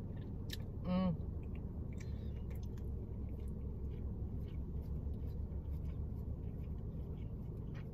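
Soft eating sounds: scattered mouth clicks and chewing over a steady low rumble, with a short vocal sound about a second in.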